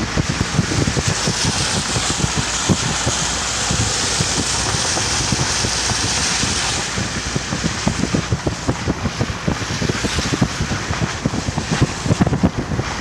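Wind buffeting the microphone in irregular gusts over a steady rush of storm water and rain, the hiss strongest in the first half.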